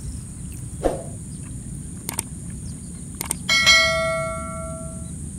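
Two sharp clicks, then a bright bell ding that rings out and fades over about a second and a half: the sound effect of a YouTube subscribe-button animation.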